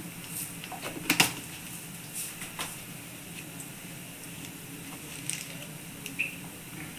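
Oil sizzling softly in a kadai, a faint steady hiss broken by a few light clicks and one sharp tap about a second in.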